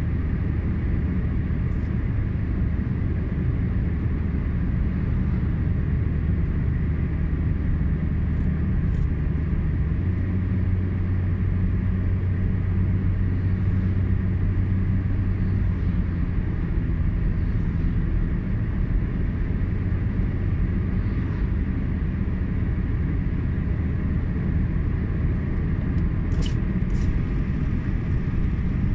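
Car driving along a highway, heard from inside the cabin: a steady low rumble of road and vehicle noise. Two faint ticks sound near the end.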